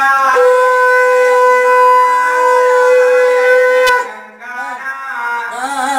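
Conch shell (shankh) blown in one long, steady note that cuts off about four seconds in; voices rise again near the end.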